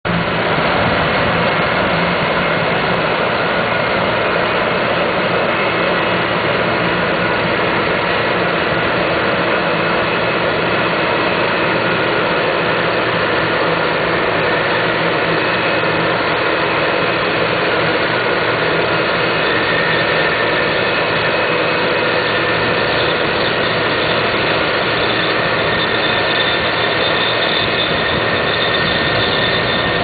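New Holland CX820 combine harvester working in wheat: engine and threshing machinery give a loud, steady drone with a few thin high whines over it.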